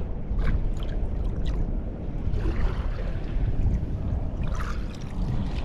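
Shallow water sloshing and splashing in a few short spurts, over a steady low rumble of wind on the microphone.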